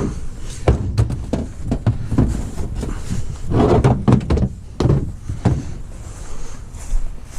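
Irregular knocks and thuds of a big old refrigerator being handled and shifted for loading, with a longer scraping cluster about halfway through.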